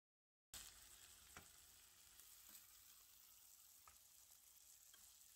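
Faint sizzling of vermicelli frying in a nonstick wok as a wooden spoon stirs it, with a few light taps of the spoon against the pan. It starts after half a second of dead silence.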